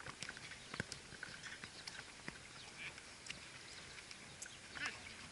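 A football being kicked and players' feet on an outdoor artificial-turf pitch: scattered, irregular sharp knocks.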